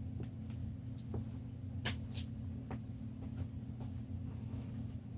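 Small clicks and taps of a pocket multi-tool being handled, the loudest pair about two seconds in, over a steady low hum.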